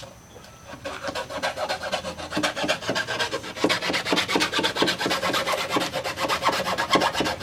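Handsaw rasping back and forth through wood in quick, short strokes, starting about a second in; the blade is barely cutting.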